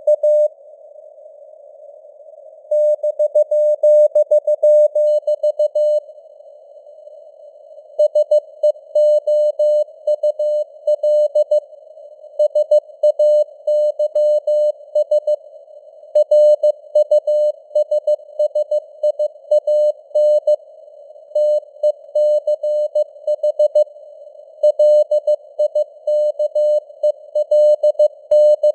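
Morse code (CW) at 15 words per minute: a single mid-pitched tone keyed on and off in rapid dots and dashes, with pauses of a second or two between groups. A faint, narrow band of simulated radio hiss sits under and between the tones.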